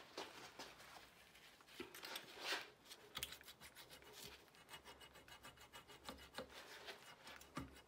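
Box cutter blade scraping and slicing through a plastic fork spring guide clamped in a vise: faint, uneven cutting strokes with small ticks.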